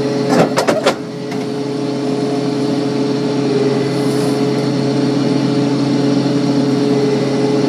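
A combine harvester runs steadily at working speed while shelling corn, making a constant engine and machinery drone with a fixed hum. A few quick clicks or knocks come in the first second.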